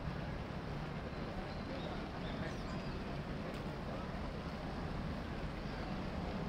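Steady outdoor city background noise: an even low rumble with no distinct events, and a few faint, short, high chirps.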